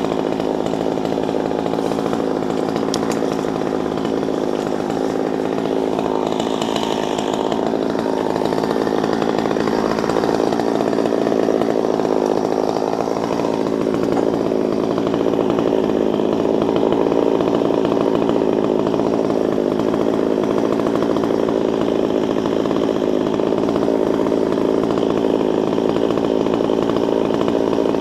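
Chainsaw idling steadily, without revving or cutting.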